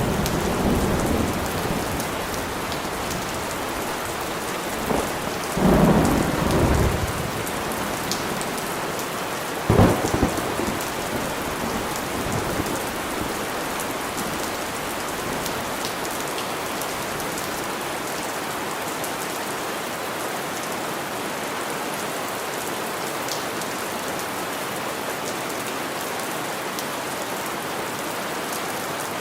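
Steady rain with thunder: a rumble at the start, a louder roll about six seconds in and a sharp thunderclap about ten seconds in, after which only the steady rain goes on.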